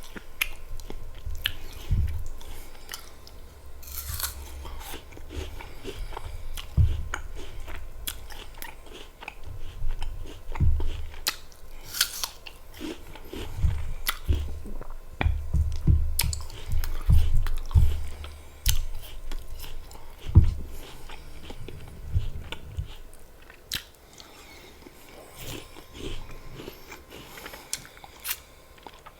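Close-miked crunchy bites and chewing of apple slices with peanut butter: crisp snapping crunches and wet mouth sounds, busiest over the first twenty-odd seconds and softer near the end.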